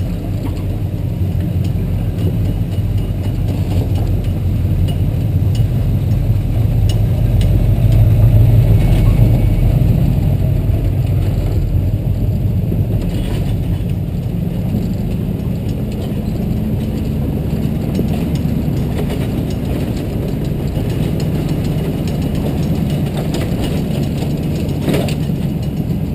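Engine of a 4x4 truck running steadily as it crawls along a rough dirt trail, swelling a little about eight seconds in, with a few light clunks from the truck.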